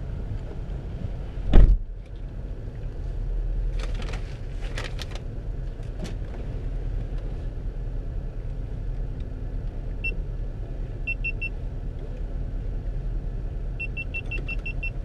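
Steady low rumble inside a car cabin, with one heavy thump about a second and a half in and a few light clicks a few seconds later. Near the end come short, high electronic beeps, first singly, then in a quick run of about six.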